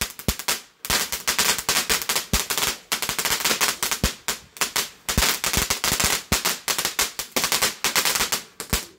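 Fireworks crackling: a dense, rapid run of sharp cracks and pops, many each second, with a short break about a second in, cutting off abruptly near the end.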